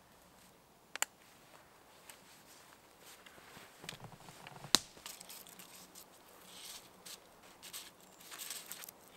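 Footsteps crunching over dry twigs and pine-needle litter, with scattered twig snaps; the sharpest crack comes about halfway. Near the end there is rustling and scraping as a cord is passed around a tree trunk.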